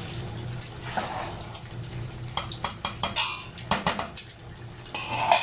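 Metal spoon knocking and scraping against a cooking pot of simmering rice and potatoes: a handful of irregular clicks and knocks over soft bubbling of the cooking water, with a steady low hum underneath.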